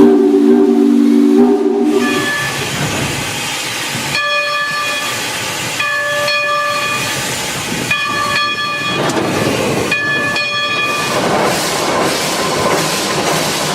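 Steam locomotive whistle blowing: a low chord held for about two seconds, then a run of shorter, higher blasts, about five, over a steady hiss of escaping steam; the hiss continues after the last blast, about eleven seconds in.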